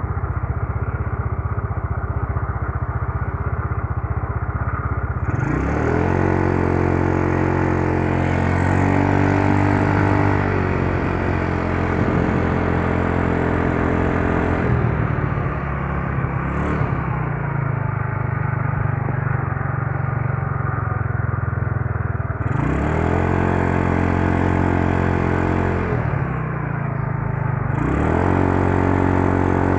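Yamaha Mio Soul scooter's single-cylinder four-stroke engine idling, then revved up three times, each time held at higher revs before dropping back to idle. It has just been started with one press after re-jetting the carburettor, to a 120 main jet and a 42 pilot jet, to cure hard starting and a dying idle.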